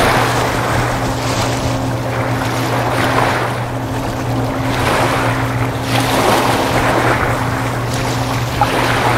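Steady low drone of the ferry Queen of Burnaby's engines. Over it, a rushing of wind and water swells and fades every couple of seconds.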